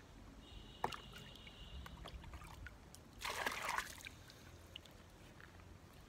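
Camera handling noise, with shirt fabric brushing against the microphone: a sharp click about a second in and a brief rustle a little past halfway.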